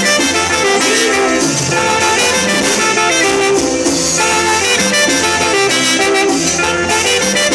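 Live saxocumbia: a band playing cumbia with saxophone lines over a steady dance beat.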